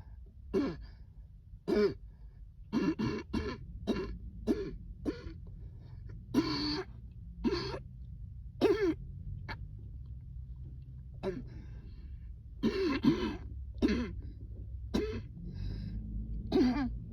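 A person in a coughing fit brought on by breathing cold air, coughing over and over: about twenty short coughs, some in quick runs of three or four.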